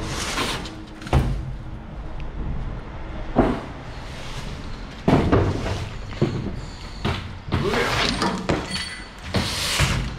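Wheel loader working a dump pile, its diesel engine running under a series of loud bangs and crashing clatters of debris every second or two.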